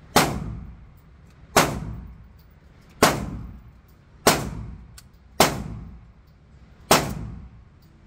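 Six gunshots, probably from handguns, inside an indoor shooting range, spaced roughly one to one and a half seconds apart. Each is a sharp crack followed by a long echo that dies away in the enclosed range.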